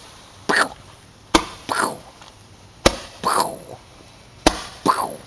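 Roman candle firing its balls in turn, three shots about one and a half seconds apart: each a sharp crack followed by a short whoosh that falls in pitch.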